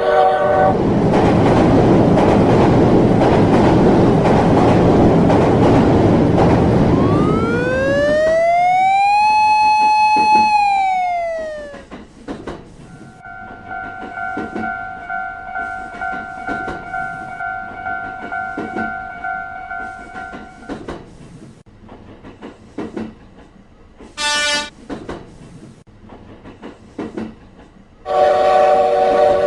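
Train sound effects for a cartoon railroad crossing. A train rumbles past for the first several seconds, then a horn slides up in pitch, holds and slides back down. A quieter stretch follows with a steady tone and regular clicks, then a short horn toot, and near the end a loud chord of horn tones starts.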